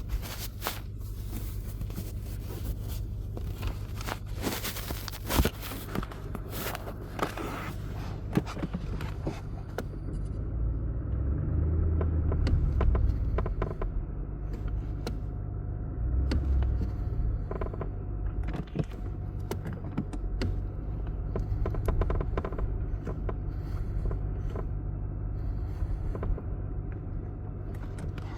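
Creaking from a 2023 Audi RS6 that appears when the car is hot: repeated short creaks and clicks over the steady low rumble of the car running, which swells twice in the middle.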